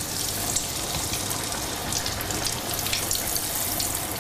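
Hot oil sizzling with a steady hiss and many small crackling pops, as in a deep-fry pan.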